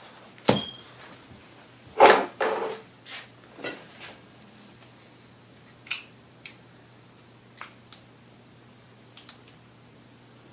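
A metal tool scraping and knocking inside the metal housing of a vintage Hamilton Beach Model D mixer, digging out old grease that has hardened into chunks. Irregular knocks and scrapes, the loudest about two seconds in, thinning out to a few light clicks.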